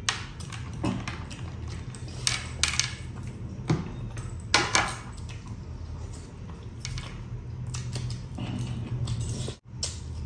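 Close-miked eating by hand: irregular wet smacks, chewing and sharp clicks, with metal clinks as silver rings and bracelets knock together while he eats biryani and a chicken leg. The sound cuts out for an instant near the end.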